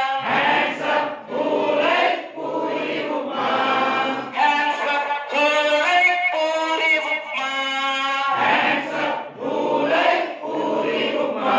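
Group of adults singing an action rhyme together, led by one voice, line after line without a break.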